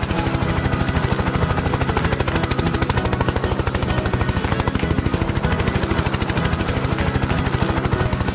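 Helicopter sound effect: rotor blades chopping in a fast, even, unbroken beat.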